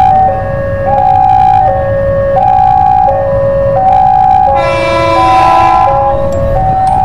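Railway level-crossing warning alarm sounding its two-tone signal, alternating high and low about every 0.7 s. About four and a half seconds in, the approaching electric commuter train's horn sounds for about a second over it.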